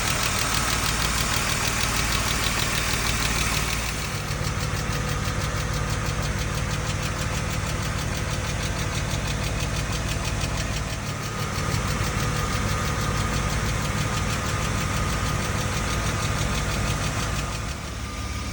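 BMW M50B25 24-valve straight-six running at idle, with a fast, even ticking over the engine note from the top end of the engine, where the hydraulic lifters sit.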